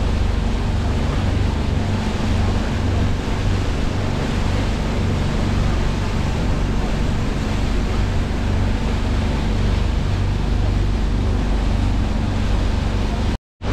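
Boat engine running steadily, a low drone with wind and water noise over it. The sound cuts out for a moment near the end.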